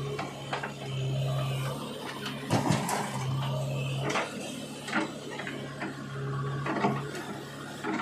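JCB 3DX backhoe loader's diesel engine running, its hum rising and falling as the backhoe arm digs and dumps soil. Sharp clanks and knocks from the bucket and arm, the loudest cluster about two and a half seconds in.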